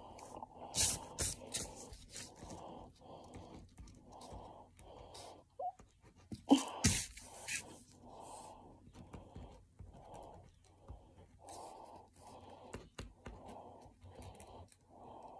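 Fast, muffled breathing in and out through a rubber gas mask, an even run of breaths. A few sharp clicks and knocks from handling break in, the loudest a little under halfway through.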